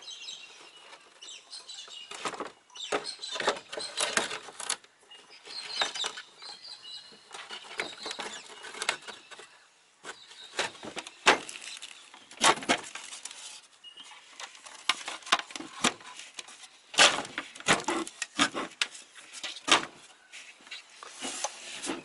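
Irregular clicks, knocks and clatter from an electric anchor winch housing and its studs being handled and seated against a fiberglass hatch panel during a dry fit.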